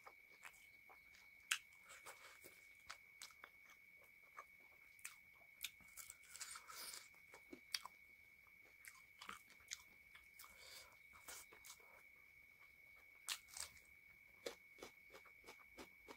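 Close-miked eating by hand: wet chewing and lip smacks with scattered sharp clicks as fingers mix rice and chicken curry on a plate. A faint steady high-pitched whine sits underneath.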